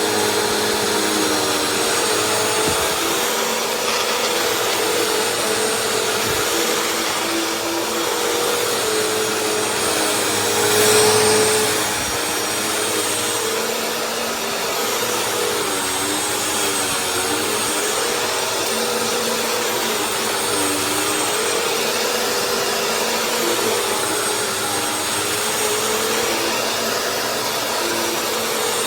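Bissell CleanView Swivel Rewind Pet upright vacuum cleaner running steadily with a motor whine and airflow noise, its pitch wavering slightly as it is worked. It gets briefly louder about eleven seconds in.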